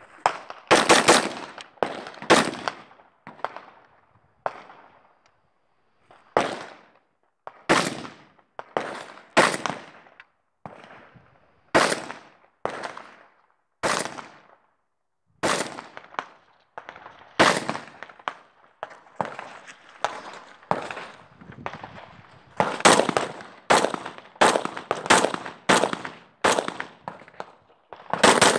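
A long string of gunshots from an AK-pattern semi-automatic gun, fired singly and in quick pairs, each crack followed by a short echo. There is a brief lull a few seconds in, then the shots pick up again and come faster near the end.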